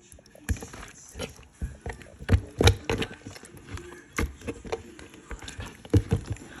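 Irregular knocks and taps, about a dozen over a few seconds, with faint rustling between them: handling noise as food and utensils are moved about.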